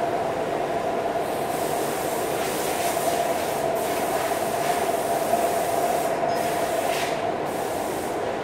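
TIG welding arc on stainless steel pipe: a high hiss that sets in about a second in and breaks off briefly a few times as the torch is walked along the joint. It sits over steady shop noise with one held mid-pitched tone.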